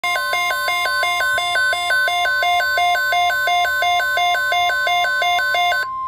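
Midland WR-120 weather radio sounding its alert alarm: a loud two-note electronic beeping that repeats about two and a half times a second. Under it runs a steady single tone, the NOAA Weather Radio 1050 Hz warning alarm tone that signals a tornado watch is being issued. The beeping stops near the end, leaving the steady tone.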